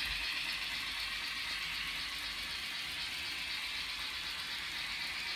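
N gauge model train rolling along the track, a steady rattling whir of small wheels and motor.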